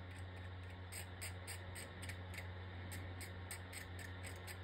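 Short scratchy strokes, about three or four a second, of a blade scraping the solder mask off a broken circuit-board trace to bare it for soldering, over a steady low hum.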